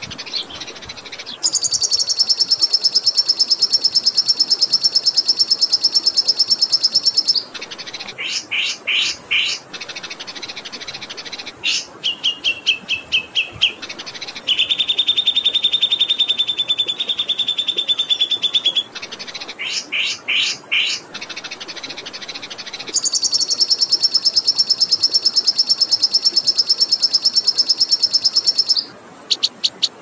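Recorded songbirds singing rapid, rolling high trills and short chattering phrases over a steady hiss of flowing water. A long high trill comes about a second in and another near the end, with a lower buzzy trill in the middle.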